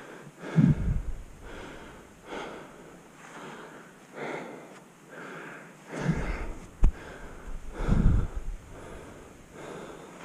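A mountain biker's heavy breathing while riding, a breath roughly every second. Low rumbles come about a second in, then again around six and eight seconds, and a single sharp knock falls near seven seconds.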